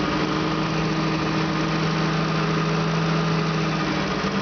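Fuel-injected 2.4-litre Opel CIH inline-four engine idling steadily.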